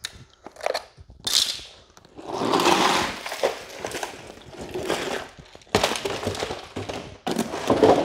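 Handling noise of fish in a plastic fish crate: irregular knocks and clatter, with a rushing scrape about two seconds in.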